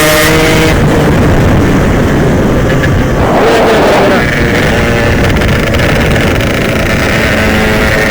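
Yamaha RX-King single-cylinder two-stroke motorcycle engine running hard at speed, with heavy wind rushing over the microphone. The engine's steady tone is buried under the wind about a second in and comes through clearly again near the end.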